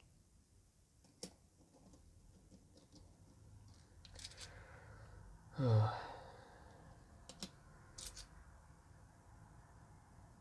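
Handful of 50-cent euro coins clicking together lightly as single coins are picked out and handled, a few scattered clinks. About six seconds in, a short sigh that falls in pitch is the loudest sound.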